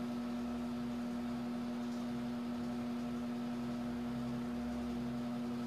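A steady low hum with a faint hiss, unchanging throughout: the room tone of a small room.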